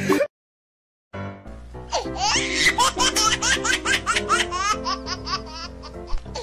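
A baby laughing in quick, high, repeated giggles over background music, starting after a brief silent gap about a second in.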